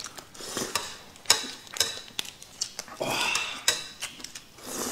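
Noodles being eaten from a plate, slurped and chewed, with several sharp clicks of chopsticks against the plate.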